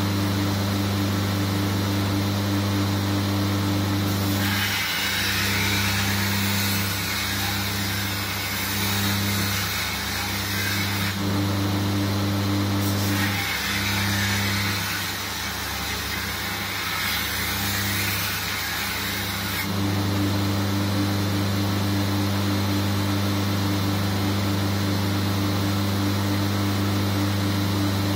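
Belt grinder motor running with a steady hum. About four seconds in, steel is pressed to the belt for two grinding passes of about six seconds each, with a short break between. Each pass adds a loud hissing grind and the hum dips under the load, then the grinder runs free again. This is the edge bevel being ground into a shashka sword blade.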